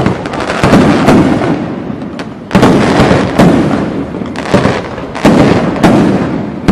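Fireworks bursting overhead in a display: loud sharp bangs about once a second, each trailing off in a rumble before the next.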